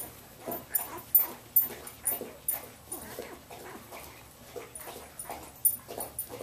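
Newborn Samoyed puppies, under two weeks old, whimpering in short, irregular squeaks, thinning out midway and coming more often again near the end.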